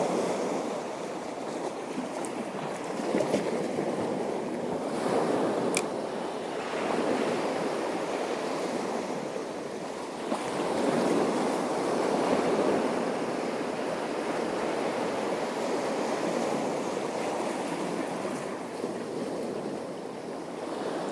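Sea waves washing in, the surge swelling and easing every few seconds, with a single sharp click about six seconds in.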